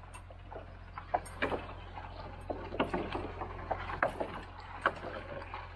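A bundle of freshly thinned young tree stems is dragged through brush and slash by a cable-logging winch. Branches and twigs scrape and snap in a run of irregular sharp cracks over a steady low hum.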